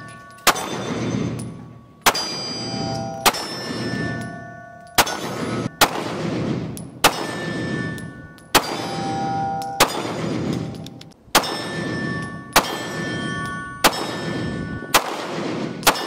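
Pistol shots from a Smith & Wesson Shield Plus, about a dozen evenly paced shots a little over a second apart. Each is followed by the ring of a steel target being hit.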